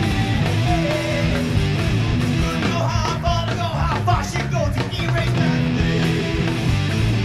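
Heavy rock music: electric guitar over bass and drums with a steady beat.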